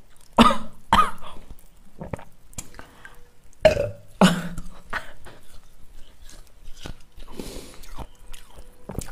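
A woman burping: four loud burps, two in the first second and two more around four seconds in, the last one held briefly on a steady low pitch.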